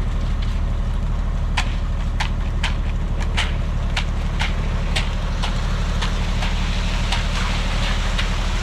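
Heavy vehicle engine running steadily at a low drone, with a string of sharp clicks or knocks through the middle.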